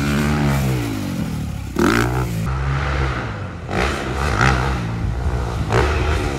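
Motocross dirt bike engine. Its note falls as the throttle is eased, then it revs up in sharp bursts about two seconds in, around four seconds in, and again near the end.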